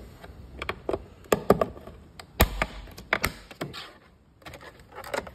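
Plastic mirror-cover clips and a plastic trim tool clicking and knocking against the mirror housing as the clipped-on cover is pried loose. A scattering of sharp clicks, the loudest about two and a half seconds in.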